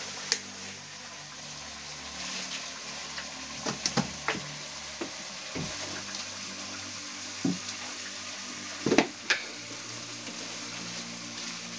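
A steady hiss with a series of sharp knocks and clinks as glass jars and a plastic bag are handled. A cluster of clinks comes about four seconds in, and the loudest pair of knocks comes about nine seconds in.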